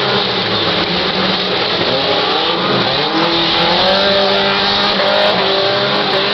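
Several stock-car engines revving hard at once, their pitches rising and falling with the throttle, over a steady rush of noise.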